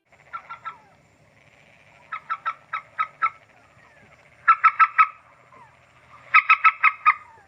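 A bird calling in quick runs of sharp repeated notes, four runs in all, the last two loudest, over a faint steady background chorus of the night field.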